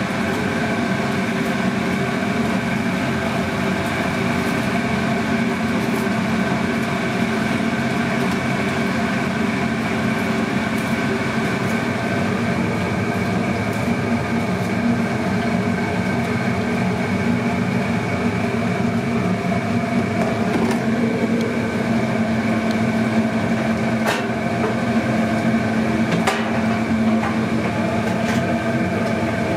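Steady drone of commercial kitchen equipment, a gas grill's burners and ventilation fan humming with several unchanging tones, with a few sharp metal clinks in the second half.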